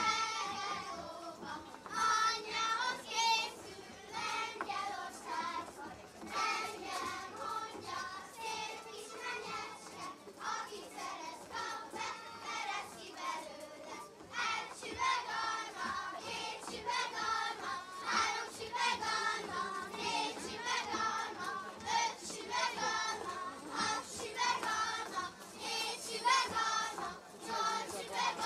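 A group of children singing a Hungarian folk song together.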